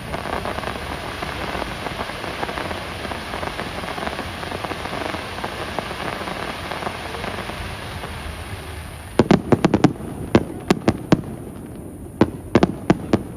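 Fireworks display: a steady noisy din, then from about nine seconds in a fast, irregular string of sharp fireworks bangs and cracks, about fifteen in four seconds.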